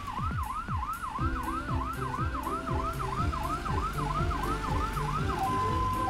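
Cartoon ambulance siren yelping, a fast repeating up-and-down wail of about three sweeps a second, which cuts off about five seconds in.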